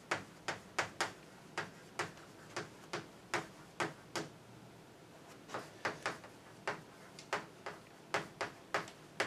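Chalk tapping and scratching on a blackboard as words are written by hand: an uneven run of sharp clicks, a few a second, with a brief pause in the middle.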